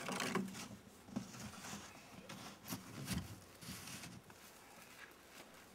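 A wheelbarrow being handled and tipped onto its side in snow: a loud knock right at the start, then several scattered knocks and scrapes over the next few seconds.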